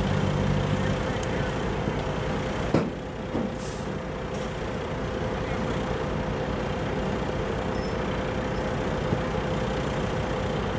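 Military light vehicle engines running steadily, with a short sharp knock about three seconds in. No mortar shot is heard.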